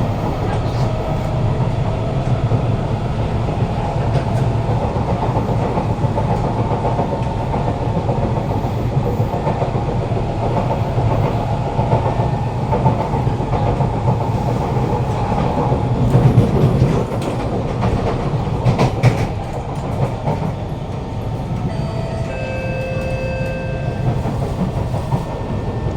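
Kawasaki C151 metro train with GTO-VVVF traction, heard from inside a motor car while running: steady wheel-on-rail rumble with the motors' whine and a few clacks over the track. From about 22 seconds in, steady inverter tones at several pitches come in as the train slows for the next station.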